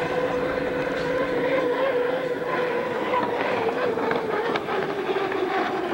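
Unlimited hydroplane racing at speed across the water: a steady, high engine note over a rush of noise, falling a little in pitch in the second half as the boat runs past.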